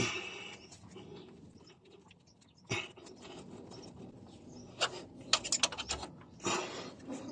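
Metal clinks, knocks and scrapes of brake caliper guide-pin bolts being started by hand and tools being handled, with a quick run of sharp clicks about five seconds in.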